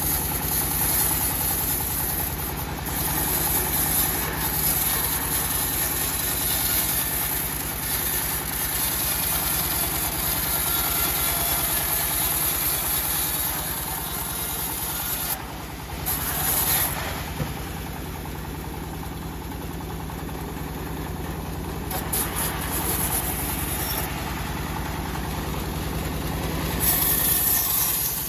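Engine-driven homemade bandsaw mill running steadily with a low engine hum, while a high hiss from the blade sawing teak comes and goes a few times.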